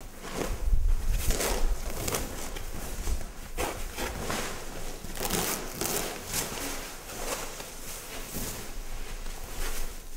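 A large white sheet being pulled and dragged over chairs and a broken floor, rustling and crackling in a run of irregular swishes. A low rumble sits under the first two seconds.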